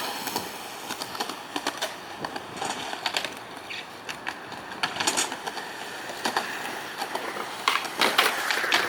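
Skateboard rolling on concrete, the wheels running with a steady grainy noise, broken several times by sharp clacks of the board.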